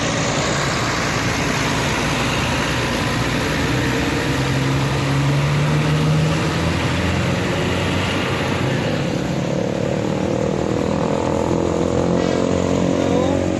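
Heavy vehicle engines running amid steady traffic noise, most likely tour buses; one engine note rises briefly about four to six seconds in as a vehicle pulls away, and another climbs near the end.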